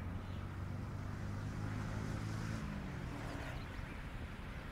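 A motor vehicle engine running as a low hum; its pitch sags slightly and it fades a little after the middle, over a light hiss.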